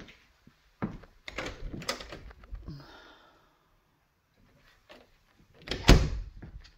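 A hinged closet door being opened, with a few knocks and a short clatter, then pulled shut by its knob with a thud about six seconds in; the closing thud is the loudest sound.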